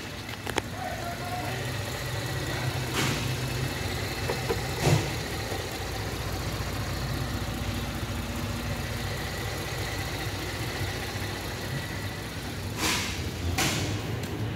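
2014 Holden Commodore's 3.0-litre V6 petrol engine idling steadily. A few short knocks come over it, about three and five seconds in and twice near the end.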